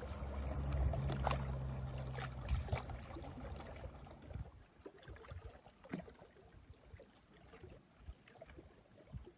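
Faint low outdoor rumble with light water lapping at the shore and a few small clicks. After about four seconds it fades to near silence with only scattered faint ticks.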